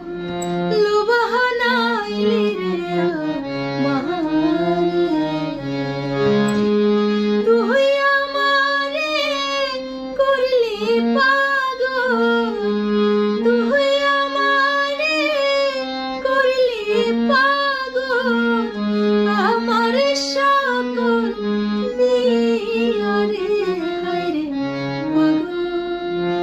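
A woman singing a Bengali song, her voice sliding and ornamenting between notes, over short held notes from a harmonium.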